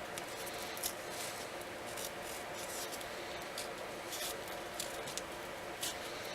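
Irregular short crisp snips and rubbing from a hand cutting tool as a small bolt hole is cut out of the bracket material, over a faint steady hum.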